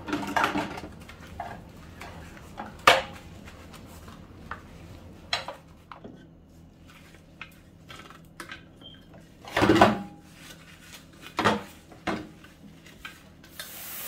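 Clear plastic parts of a Hamilton Beach food processor being handled and wiped in a stainless steel sink: scattered knocks and clunks of plastic, the loudest about ten seconds in.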